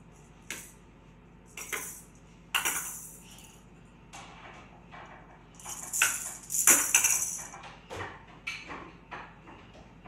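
Toddler's toys being handled: scattered knocks and clacks of wooden pieces, with two louder jingling, rattling stretches about two and a half seconds in and again around six to seven seconds in.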